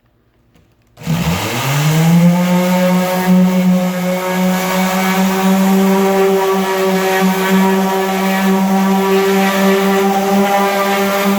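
Black + Decker random orbital sander switched on about a second in: its motor winds up quickly in pitch and then runs steadily at an even pitch.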